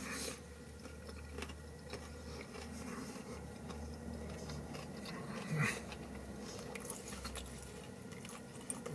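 A person chewing a bite of fried cod fish sandwich, with faint soft mouth sounds and one brief, slightly louder low sound a little past halfway. A low steady hum runs underneath.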